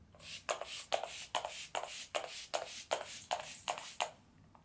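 MAC Fix+ setting spray's pump-mist bottle sprayed over and over in quick succession, a fast run of short hissing puffs, about four a second, stopping about four seconds in.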